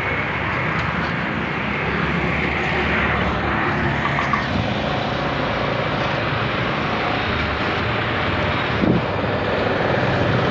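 Motorcycle riding along a road: a steady, dense rush of engine and wind noise, with a brief thump about nine seconds in.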